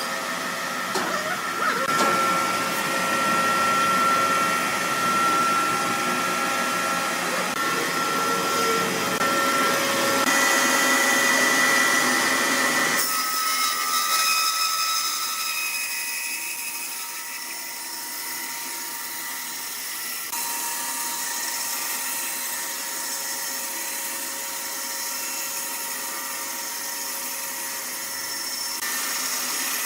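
Woodworking machinery running with a steady, multi-toned whine. The sound changes abruptly about 13 seconds in and again around 20 seconds.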